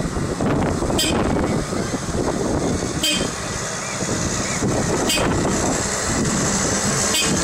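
Huddig 1260B backhoe loader's engine running as the machine drives slowly past, with a short high beep repeating about every two seconds.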